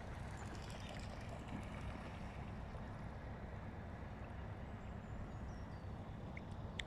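Steady outdoor background noise at a lake's edge, with a faint high falling bird call a little past halfway and a couple of small clicks near the end.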